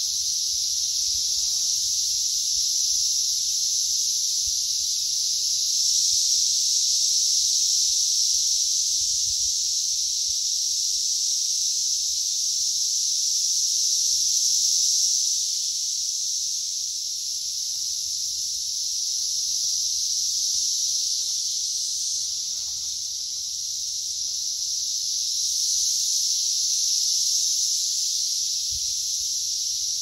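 A dense chorus of periodical cicadas (Brood X) buzzing loudly, a high-pitched drone that swells and eases slowly every several seconds.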